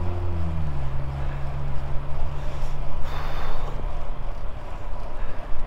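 Wind rushing over a handlebar-mounted GoPro's microphone and road noise from a road bike rolling on wet pavement. A low vehicle hum under it drops slightly in pitch about half a second in and fades out about four seconds in.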